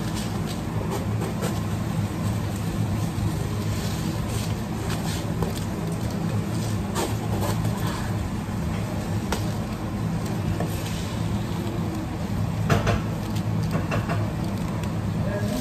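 A steady low hum, with scattered light clicks and rustles of dry rice grains being scooped with a small cup inside a plastic jar.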